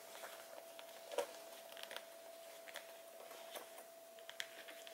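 Faint scattered clicks and light rubbing as a cotton pad scrubs cleanser onto a metal D-ring on a leather bag strap. A faint steady tone runs underneath.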